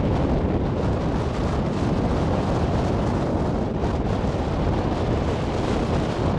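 Wind buffeting the camcorder microphone, a steady rumble with a fainter hiss over it.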